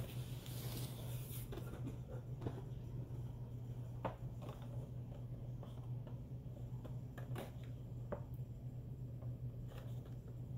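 Cardboard shipping box and a boxed Funko Pop figure being handled: scattered light rustles, scrapes and taps of cardboard packaging, over a steady low hum.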